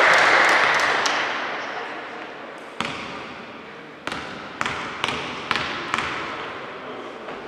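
Basketball dribbled on a hardwood court: sharp bounces with a short ring in the hall, one about three seconds in and then a steady run of about two a second. Before them, a wash of crowd noise in the hall fades away.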